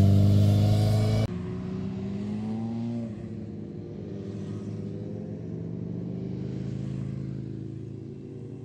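Motorcycle engine running loud under throttle. About a second in, it cuts suddenly to a quieter, duller engine note that climbs in pitch, then holds and fades out slowly.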